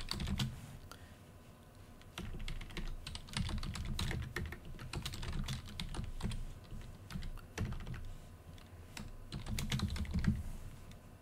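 Computer keyboard being typed on: a run of quick keystroke clicks, with a short pause about a second in before the typing picks up again.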